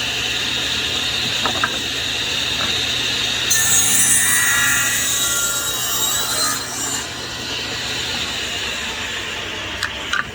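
SawStop jobsite table saw running, cutting through a small wood block into a wedge on a sliding jig; the cut is louder and higher for about three seconds in the middle. The saw's low hum drops away about eight seconds in, and a few light knocks come near the start and near the end.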